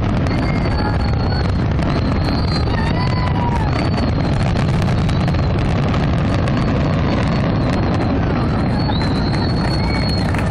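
Fireworks going off in a dense barrage: a steady, unbroken rumble of booms with crackling, and a few thin whistles above it, heard through a phone's microphone.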